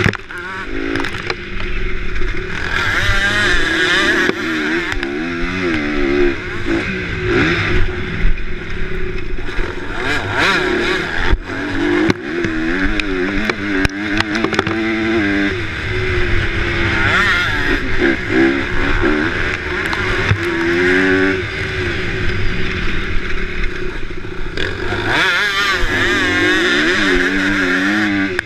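Motocross dirt bike engine heard from on board, its revs climbing and dropping over and over with throttle and gear changes.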